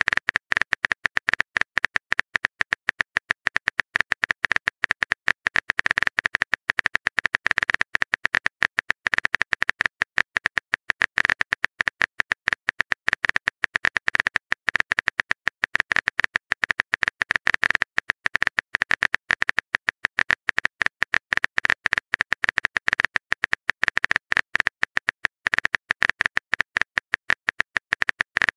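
Rapid keyboard-tap clicks from a texting-story app's typing sound effect, each click at the same level, going on without pause as a message is typed out.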